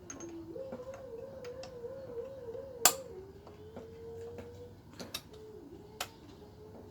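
Sharp metallic clicks and taps from brake pads and their retaining pin being worked back into a motorcycle brake caliper, the loudest about three seconds in. Under them runs a faint, long wavering tone.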